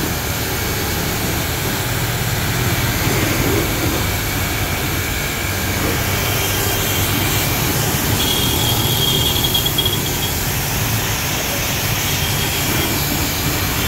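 A 3-horsepower, 160-bar pressure washer running steadily under load as its jet sprays through the nozzle: an even hiss of spray over a low motor-and-pump hum.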